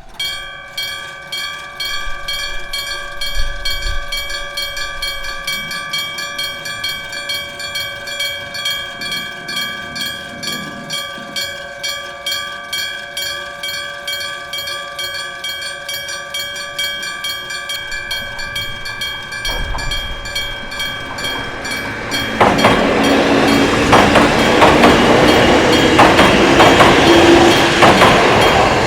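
Electric bell of a Japanese level crossing starting up and striking steadily, a few strokes a second, each strike ringing on into the next. About 22 seconds in, a train passes over the crossing, its wheels rumbling and clattering on the rails, louder than the bell.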